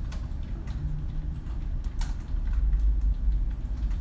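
A steady low rumble that swells in the second half, with a few sharp clicks at the computer as the C++ program is compiled and run.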